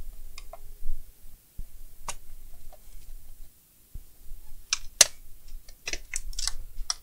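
Sharp plastic clicks and snaps as the HP 15-ay laptop's plastic back cover is worked loose by hand and tool. A few scattered clicks, then a quick run of them in the last two seconds, the loudest about five seconds in.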